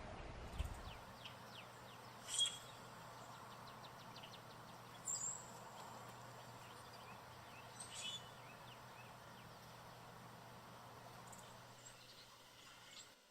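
Wild backyard birds calling: a handful of short, sharp chirps spaced a few seconds apart, the loudest about two seconds in, over a faint steady hum.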